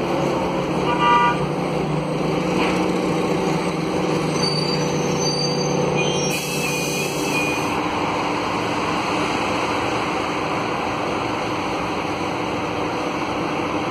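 Interior noise of a Scania K280UB bus under way: the Scania DC09 Euro 6 diesel and ZF Ecolife automatic drivetrain give a steady hum whose pitch shifts about halfway. There is a short run of electronic beeps about a second in and a brief hiss near the middle.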